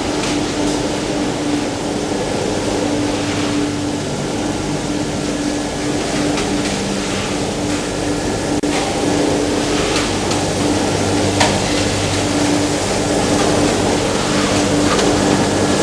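Plastic bag and film washing line running: a steady machine hum with a constant mid-pitched tone over a wash of water and motor noise, with a few sharp clicks.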